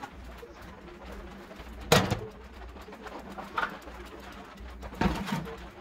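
Metal clanks from a toaster oven being opened and a metal baking pan being handled: one loud sharp clank about two seconds in, a lighter one a little later, and more near the end, over a low steady hum.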